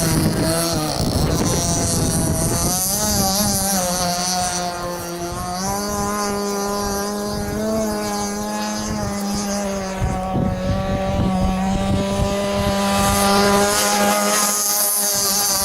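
Small gas engine of a radio-controlled model boat running with a steady high whine whose pitch wavers a little up and down as the throttle changes.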